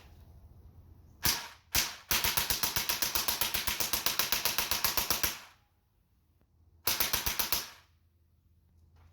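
HPA-fed Drozd (MP-661K) BB machine gun firing: two single shots, then a rapid full-auto burst of about three seconds, and after a pause of about a second and a half a second, shorter burst.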